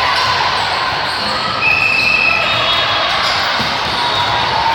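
Busy volleyball-gym ambience in a large echoing hall: a steady hubbub of voices with volleyballs bouncing and being struck, and a brief high squeak about two seconds in.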